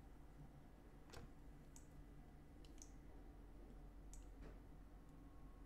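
Faint, scattered clicks of a computer mouse, about half a dozen, over a low steady room hum.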